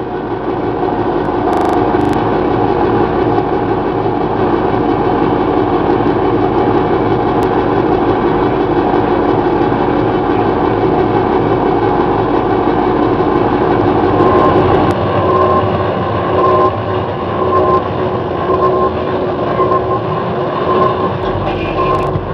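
Electronic noise music from circuit-bent music and video equipment: a loud, dense, steady drone with held tones. About two-thirds of the way through, a higher tone starts pulsing on and off a little faster than once a second.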